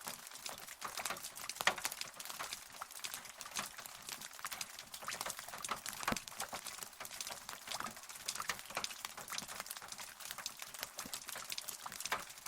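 Steady rain, a dense patter of separate drops landing.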